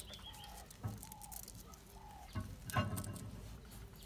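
A bird calls over and over, a short arched note repeated a little more than once a second, stopping a couple of seconds in. A few knocks from handling parts come in between, the loudest a clatter near three seconds.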